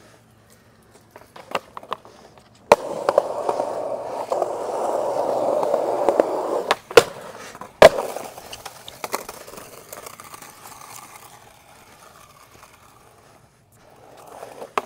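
Skateboard on a concrete skatepark. A sharp clack of the board hitting the ground about three seconds in is followed by the wheels rolling steadily over the concrete for a few seconds. Two more sharp board clacks come a second apart, then the rolling fades away.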